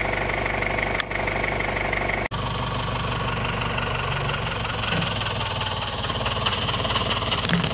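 Compact tractor's engine idling steadily, with a short break about two seconds in.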